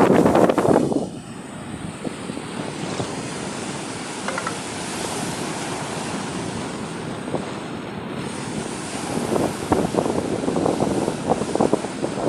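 Sea waves on the shore. A loud wave wash dies down about a second in, steady surf follows, and then it swells again with many small crackles near the end.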